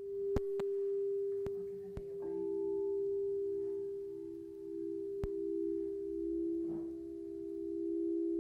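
Crystal singing bowls ringing. One bowl's steady tone is joined about two seconds in by a second, slightly lower bowl, and the two tones pulse against each other. A few sharp clicks sound over them.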